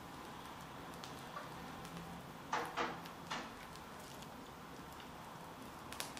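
Piping bag of cream cheese frosting being squeezed, giving three short rustling squelches about two and a half to three and a half seconds in, over faint room tone.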